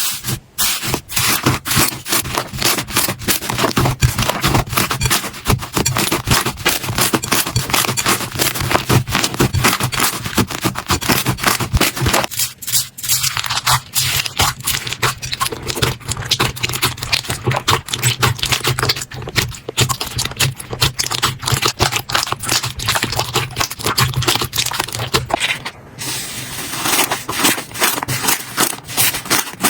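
Slime being squeezed and pressed by hand: a dense, irregular run of sticky popping and crackling clicks. The texture changes briefly about twelve seconds in and again about twenty-six seconds in.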